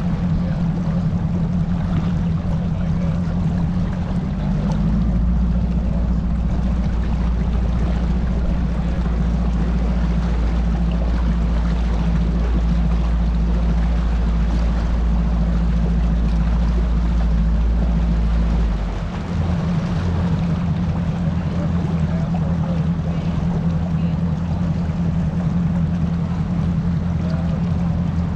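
Bass boat's outboard motor running steadily at low speed. A deeper low rumble joins it about five seconds in and drops away about two-thirds of the way through.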